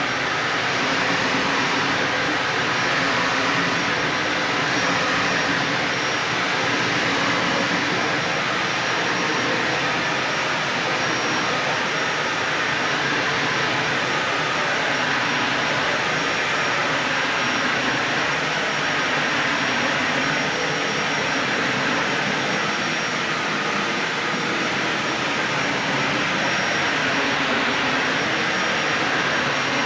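Dyson Ball Animal 3 Extra upright vacuum cleaner running steadily over carpet: an even rush of air and motor with a faint high whine.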